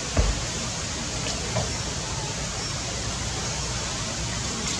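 Steady hiss of rain, with one low thump just after the start and a couple of faint ticks.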